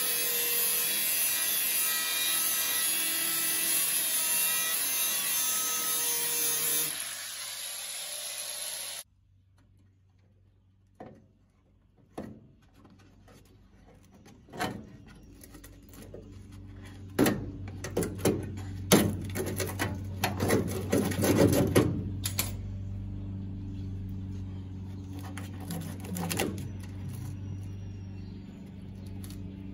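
Angle grinder with a cutoff wheel cutting through the rusty sheet-steel inner wheel house of a 1968 Pontiac Firebird, then winding down and stopping about nine seconds in. After that come scattered knocks and a run of metallic clattering.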